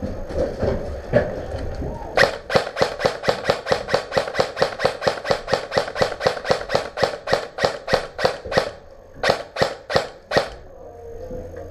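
Krytac CRB airsoft electric rifle firing single shots in quick succession, about five sharp cracks a second for some six seconds, then a short pause and four more shots.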